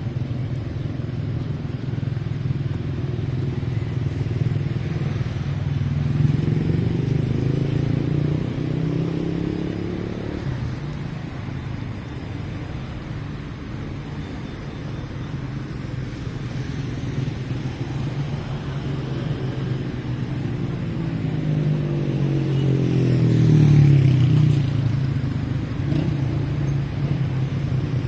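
City street traffic: a steady hum of engines and tyres, with vehicles passing close twice, swelling and fading about six seconds in and again past twenty seconds in. The second pass is the loudest.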